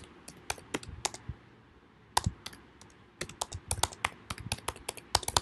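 Typing on a computer keyboard: scattered keystrokes, a short pause, a few more, then a quicker run of keys in the last two seconds.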